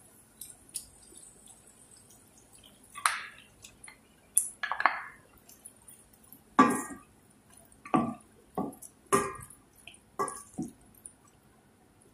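Wooden spatula stirring raw chicken pieces and shrimp in a stainless steel pot: a run of short, wet scraping strokes, about eight of them, starting about three seconds in.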